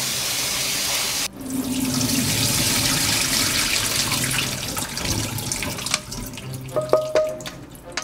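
Kitchen tap running into a sink, the water splashing steadily, then a few clicks and clinks near the end as the flow eases.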